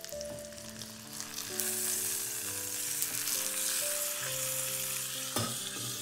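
Pork belly sizzling in its own rendered fat in a Saladmaster stainless steel electric skillet, the hiss growing louder about a second and a half in. A short metal knock near the end as the steel lid goes on. Piano music plays underneath.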